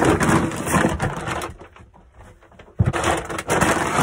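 Grain being poured out for a calf's feed, heard as two bursts of rattling rustle with a short lull between them, the second starting a little under three seconds in.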